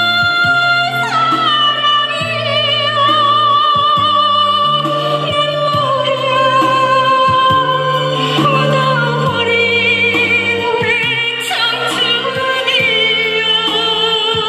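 A woman singing a Korean trot song into a microphone over an instrumental backing track, holding long notes with vibrato above a steady stepping bass line.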